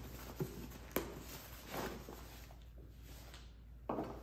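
Handling noise from a nylon first aid kit pouch being unfastened from the top of a backpack: a few small clicks and fabric rustles, then a soft knock near the end as the pouch comes down by the tabletop.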